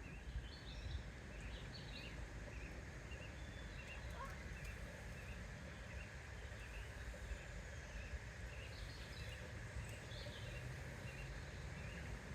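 Birds chirping in short repeated notes, with a few higher calls near the start and again about nine seconds in, over a steady low rumble of outdoor background noise.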